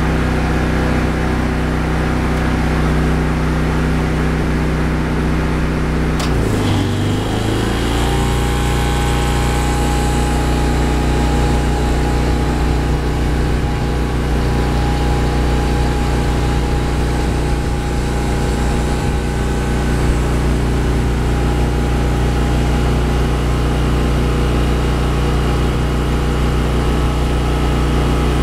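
Briggs & Stratton 8 kW tri-fuel generator engine running on propane. About six seconds in, the 4-ton air-conditioner's compressor kicks on with a click, and the engine bogs down, its pitch dropping for a second or two under the starting surge. It then recovers and runs steadily under the load, with the condenser's steady hum added.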